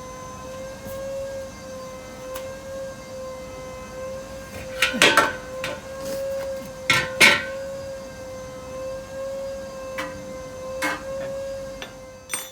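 Hand tools knocking and clanking on metal during a rear brake pad change, loudest in a cluster about five seconds in and two more about seven seconds in. A steady high-pitched hum runs underneath.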